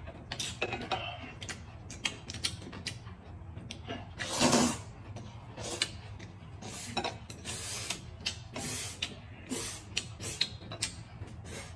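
Close-miked eating: noodles being slurped and chewed, with many small wet mouth clicks and smacks. There is one louder, longer slurp about four seconds in.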